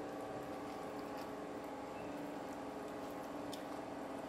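Wooden spoon stirring thick, slimy okra soup with fish in a stainless steel pot: soft squelching with a few light clicks. A steady hum runs underneath.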